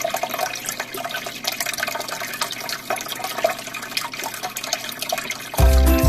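Aquarium water bubbling and trickling: air bubbles from an airline tube breaking at the surface, with the flow of the tank's filters, a dense crackle of small pops. Background music comes in loudly near the end.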